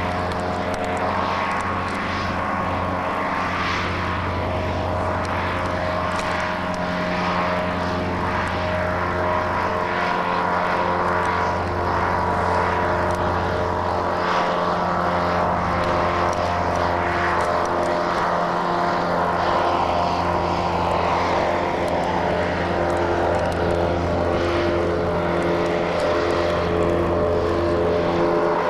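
AT-10 airship's engines and propellers running steadily in flight: a constant drone holding several steady pitches, growing slightly louder after the first few seconds.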